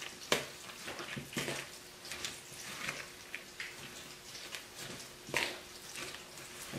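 Hands tossing shredded lettuce and grated carrot in a plastic bowl: soft, irregular rustling and crunching, with a few louder rustles, one just after the start and one about two-thirds of the way through.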